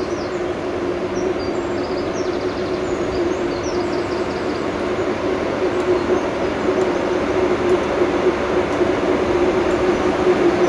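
Class 90 electric locomotive pulling away slowly with its passenger coaches, a steady electric hum growing gradually louder. Small birds chirp in the first few seconds.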